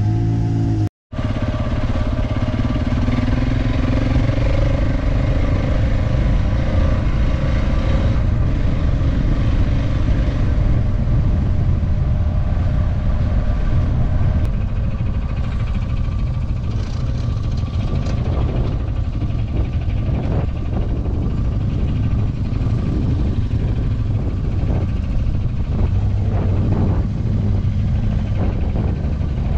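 An off-road motorcycle's single-cylinder engine running steadily under way, likely a KTM 690 Enduro. The sound drops out for an instant about a second in. In the second half frequent knocks and rattles come through over the engine.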